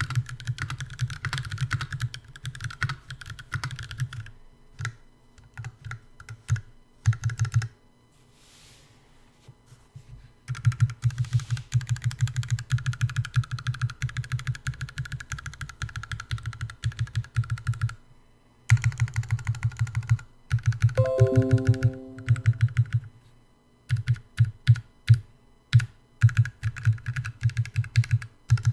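Typing on a Percent Canoe mechanical keyboard with lubed Kailh Box Black linear switches and GMK Olivia keycaps: fast runs of key strokes broken by short pauses, with one longer pause about eight seconds in. About two-thirds of the way through, a short falling run of electronic beeps sounds over the typing.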